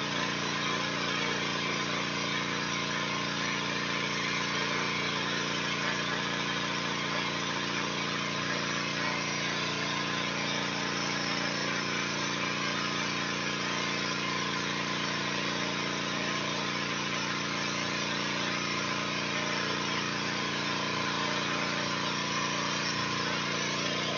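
Gas-engine pressure washer running steadily under load, with the constant hiss of its high-pressure spray striking a building's wall.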